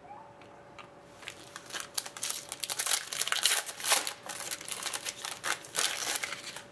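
Foil trading-card pack crinkling and tearing as it is ripped open by hand and the cards are slid out of the wrapper. It starts about a second in, in a rapid run of sharp crackles.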